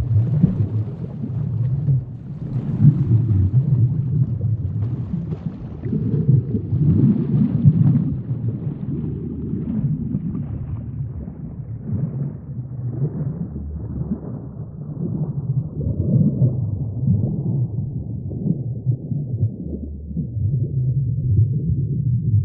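Low, rumbling, burbling water sound that starts abruptly, with its higher, brighter part dying away over the second half.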